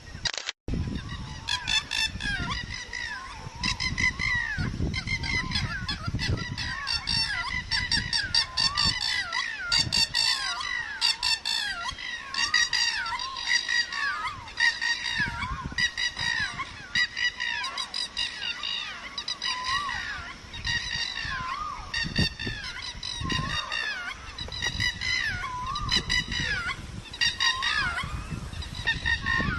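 A flock of birds calling without pause: rapid, overlapping honking calls, several a second, over a low rumble. The sound cuts out for a moment about half a second in.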